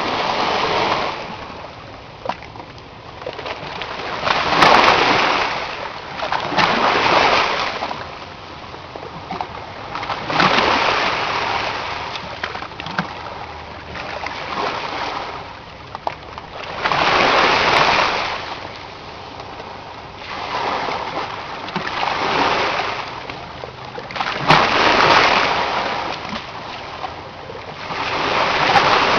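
Sea waves washing in, a swell of splashing noise every two to four seconds that rises and falls away.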